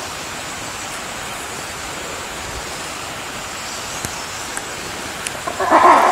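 Steady hiss of background noise with a few faint ticks; near the end a loud bark-like call begins.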